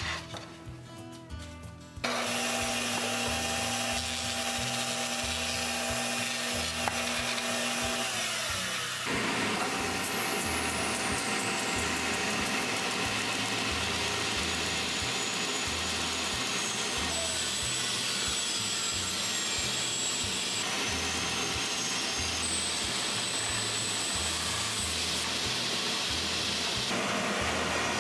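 Table saw running and ripping a wooden board, with a dust collector running alongside. The machine noise starts about two seconds in and stays steady, changing character about nine seconds in, with background music underneath.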